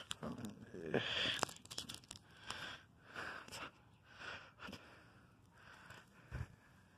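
Heavy breathing close to the microphone, about one breath a second, from someone with breathing issues. A few clicks and rustles come between about one and two seconds in.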